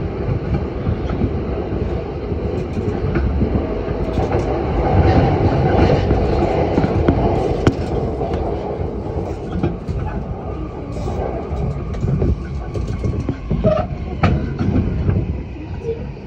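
Cabin noise of a JR Yamanote Line electric commuter train running between stations: a steady low rumble of wheels on rail with scattered clicks over the rail joints. It grows louder towards the middle and eases off near the end.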